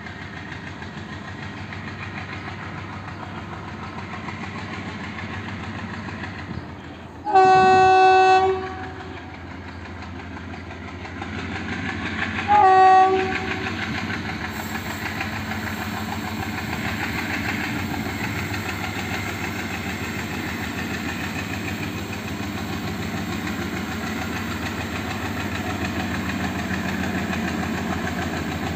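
WDG3A diesel locomotive's horn sounding twice, a long blast about a quarter of the way in and a short one a few seconds later, over the steady rumble of the approaching locomotive, which grows louder toward the end.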